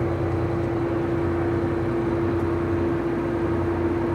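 Tractor engine running steadily, a low drone with a constant steady hum over it.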